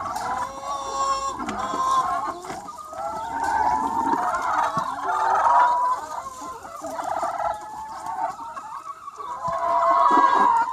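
Large free-range chicken flock clucking and calling, many hens at once in overlapping calls that rise and fall in loudness.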